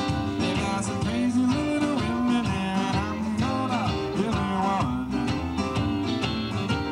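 Live band playing an upbeat number with upright bass, electric keyboard, guitar and drums.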